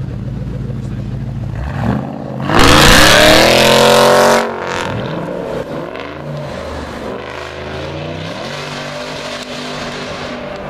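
Ford Mustang Shelby GT500's supercharged V8 idling, then revved hard at full throttle about two and a half seconds in as the car pulls away, with the engine note rising. The loud burst lasts about two seconds, then the engine sound drops and fades as the car drives off.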